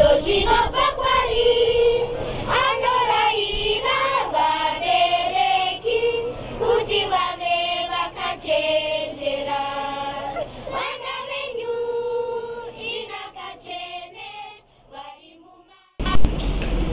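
Unaccompanied group of voices singing, fading away about two seconds before the end. A sudden loud, noisy sound cuts in near the end.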